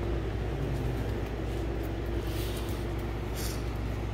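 Steady low hum of a running motor or appliance with a faint steady tone in it. Over it, faint brief scratching and rustling twice, about two and a half and three and a half seconds in, as vinyl transfer tape is rubbed down and worked on a glitter epoxy tumbler.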